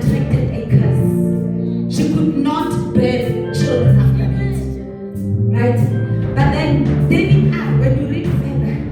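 Live praise music: singing over a band, with held bass notes and regular drum hits.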